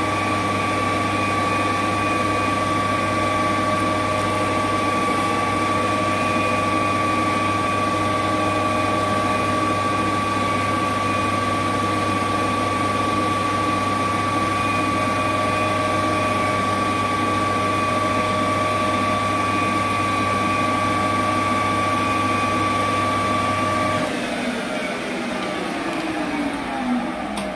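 Metal lathe running steadily with a 4-jaw chuck spinning, a constant whine over a hum. About 24 seconds in it is switched off and winds down, its pitch falling as the chuck coasts to a stop.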